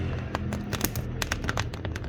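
Wood fire crackling and popping in a wood-burning stove: rapid irregular snaps over a low steady rumble.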